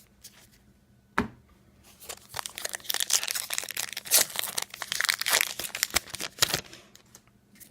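A trading-card pack wrapper being torn open and crinkled by hand, with a click about a second in, then a few seconds of crackling tearing and crumpling.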